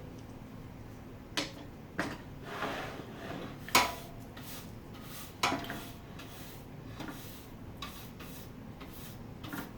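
Workshop handling clatter: a handful of sharp knocks and clunks as tools and plywood are moved and set down on a bench, two of them ringing briefly. No saw is running.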